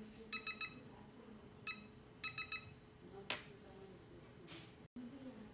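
The fingerprint control board's buzzer beeps as a finger is read on the round capacitive fingerprint sensor: three quick beeps at the start, a single beep about 1.7 s in, then three quick beeps again. A faint click follows a little after 3 s.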